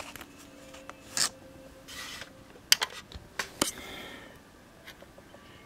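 Handling noises from a moldavite and a flashlight being moved into place: soft rubbing, then a quick cluster of sharp clicks and taps about three seconds in.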